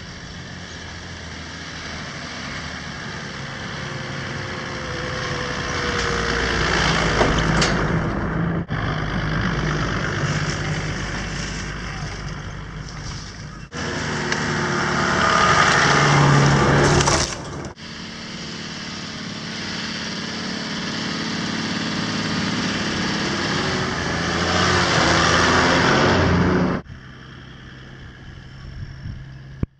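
Toyota Land Cruiser 80 Series four-wheel drive driving along a sandy bush track. The engine grows louder as it approaches and fades as it moves off, in several clips that cut off abruptly. Near the end the engine is fainter.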